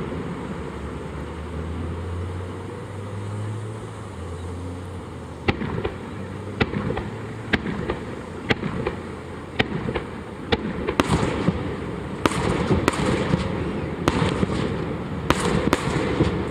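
Aerial fireworks bursting. After about five seconds of rumbling, sharp bangs come roughly once a second, then bunch into denser crackling volleys in the second half.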